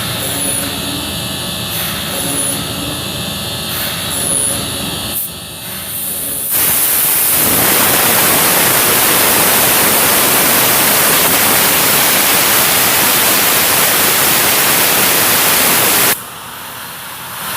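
Woodworking CNC machining centre running with a steady mechanical hum and whine. About six seconds in, a loud, even hiss starts suddenly, holds steady for about ten seconds, then cuts off abruptly.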